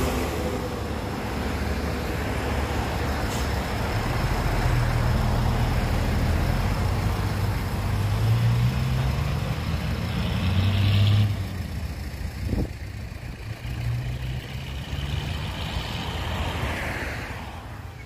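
Dump truck's diesel engine pulling away and accelerating, its pitch climbing in steps as it works up through the gears. About eleven seconds in it drops off and fades as the truck drives away down the road.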